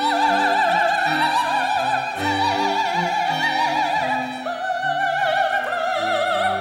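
A female opera singer singing long held notes with wide vibrato, a new note starting about four and a half seconds in, accompanied by a small string ensemble with violins.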